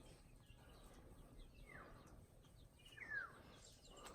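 Quiet outdoor background with a bird calling twice, each a short call that falls in pitch; the second call is the louder.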